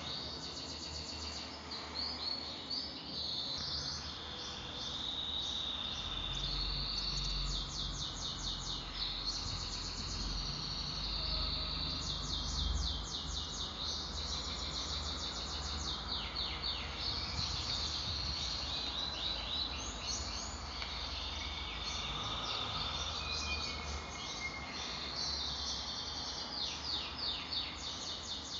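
Small songbirds singing continuously in rapid chirps and fast trills, with a low steady rumble underneath from about six seconds in.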